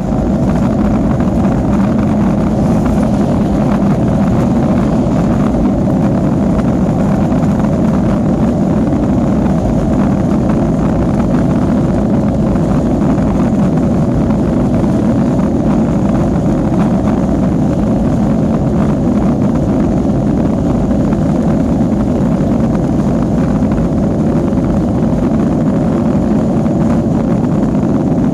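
Boeing 737 jet engines running during takeoff: a loud, steady rumble with a thin steady tone in it, unchanging throughout.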